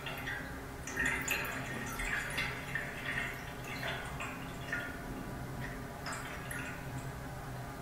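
Water gurgling and dripping inside an indoor water pipe: irregular bubbling plops, several a second and busiest in the first half, over a steady low hum.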